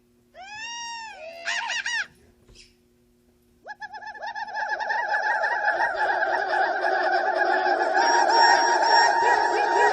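Synthesized Star Wars droid sound effects in the manner of R2-D2: a few quick whistling chirps that arch up and down in pitch in the first two seconds, then after a pause a long, dense, fluttering warble of beeps that swells and keeps going.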